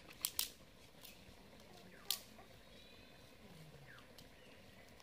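Dry twigs snapping as they are broken by hand for a wood fire: two quick sharp cracks just after the start and another about two seconds in. Faint bird chirps in the background.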